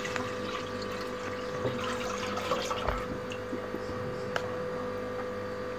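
Milk pouring in a steady stream from a jug into a wide metal karahi, splashing into the milk already in the pan, with a few small ticks.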